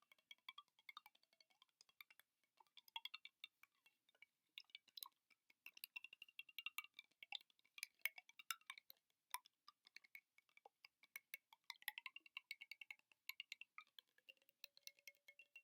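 Fast, light ASMR tapping: many quick taps and clicks in irregular clusters, with short pauses between runs.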